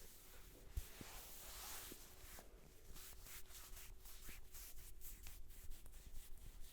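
Hands rubbing and scratching through hair and scalp during a head massage: a faint, soft brushing with scattered small clicks and crackles.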